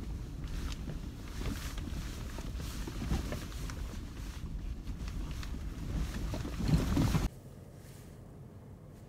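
Lexus GX cabin noise while driving over a rough dirt forest road: a steady low rumble with frequent knocks and rattles over the bumps, loudest about six to seven seconds in. It cuts off suddenly a little after seven seconds, leaving a faint quiet background.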